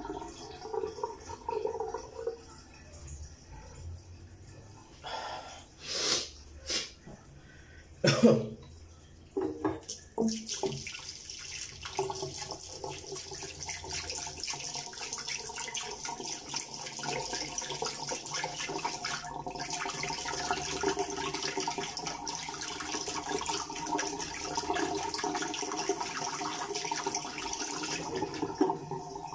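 Water running from a tap into a sink, starting about ten seconds in and then running steadily. Before it come a few short, sharp sounds, the loudest about eight seconds in.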